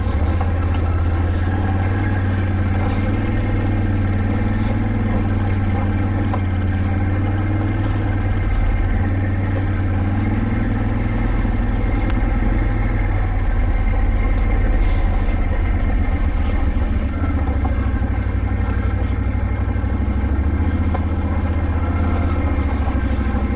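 Can-Am ATV's engine running steadily at a low, even throttle while crawling up a steep, rocky trail.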